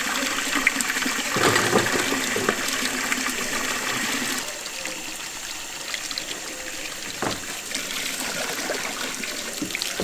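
Rice being washed by hand in a plastic basin, the water sloshing as the grains are swished, while a tap runs into a plastic dipper. The sloshing dies down about four and a half seconds in, leaving the running water and a few light knocks.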